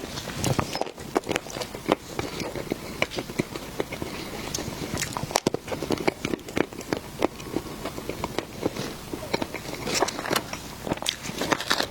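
Close-miked eating: biting and chewing with many quick, irregular crisp clicks and crackles.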